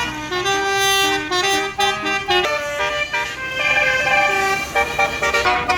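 A tour bus's basuri telolet horn playing a melody: a run of held horn notes stepping up and down in pitch, thicker and more layered from about three and a half seconds in.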